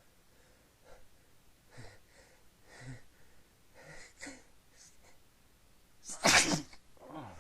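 A person's short, catching breaths building up, then one loud sneeze into a handkerchief about six seconds in, followed by a short breath.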